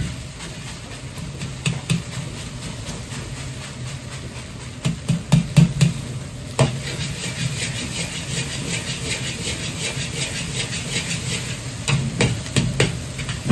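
A metal ladle scraping, clinking and knocking against a large wok as egg fried rice is stirred and pressed, over the steady rush and hiss of a gas wok burner. The knocks come thicker about five seconds in and again near the end.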